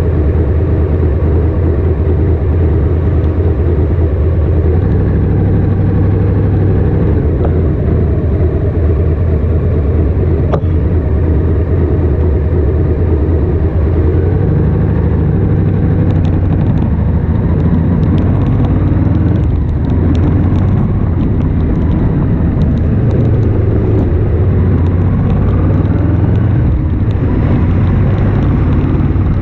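Ducati Monster S2R's air-cooled L-twin engine running at low revs while the bike creeps along in slow traffic. The pitch steps up a few times as it pulls forward.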